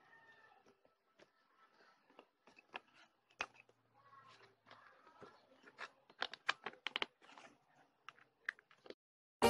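Hands squeezing glitter slime and pressing it into a small plastic tub: a scatter of faint sticky clicks and pops, thickest about six to seven seconds in.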